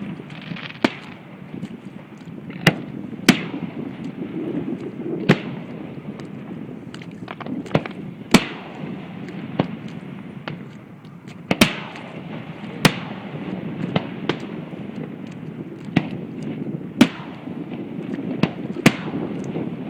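Aerial fireworks shells bursting: about a dozen sharp bangs at irregular intervals, a few seconds or less apart.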